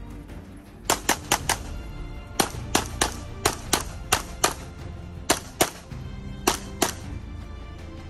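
Canik SFx Rival 9mm pistol firing about fifteen shots in rapid strings and pairs: four quick shots about a second in, a string of seven, then two pairs, with brief pauses between. Steady background music plays underneath.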